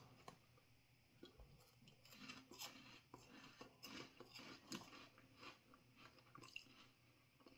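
Faint chewing of crunchy cheese puff balls: a run of small, irregular crunches.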